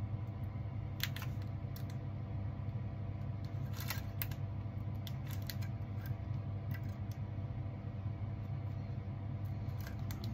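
Light, scattered clicks and ticks of metal tweezers against the iPod classic's internal parts as the headphone cable is worked into its connector, over a steady low hum.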